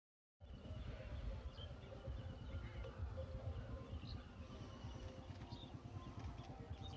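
Rural outdoor ambience starting about half a second in: a low, uneven rumble of wind on the microphone, a few faint bird chirps and a steady faint high hiss.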